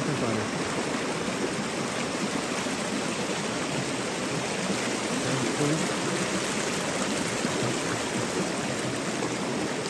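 Fast-flowing river rushing over stones and gravel, a steady noise of running water.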